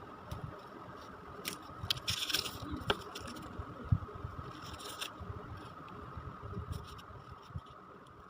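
Objects being handled: two short scraping rustles and a few sharp clicks, over a faint steady whine.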